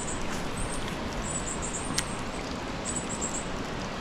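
A small bird chirping high and thin, in quick clusters of two to four notes repeated several times, over a steady background hiss. A single sharp click comes about two seconds in.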